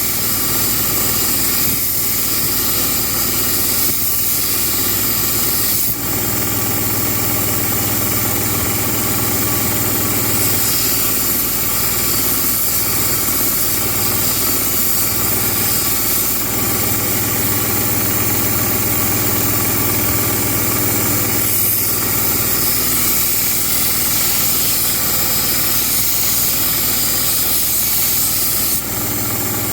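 Belt grinder running steadily while a knife blade is ground against the abrasive belt: a constant motor hum under an even grinding hiss, with a couple of brief dips as the blade is lifted and repositioned.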